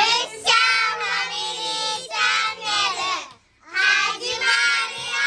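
Children's voices singing a short intro jingle in two phrases, with a brief break about three and a half seconds in and a held note near the end.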